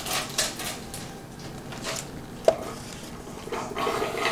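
A plastic straw or spoon scraping and tapping inside a disposable cup, in a series of short clicks, with one sharp tap about two and a half seconds in.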